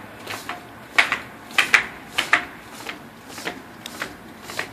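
A child's footsteps in sandals going down concrete stairs: a run of quick, sharp slaps and taps, often in pairs, about two to three a second.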